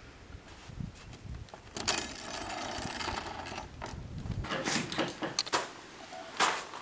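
Footsteps in snow, then a large wooden barn door being opened, scraping and rattling for about two seconds, followed by several sharp knocks and clatters.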